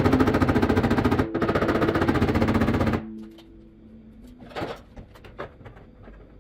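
Background music with a fast, rattling beat over held notes, cutting off suddenly about three seconds in; after that only faint scattered clicks and taps.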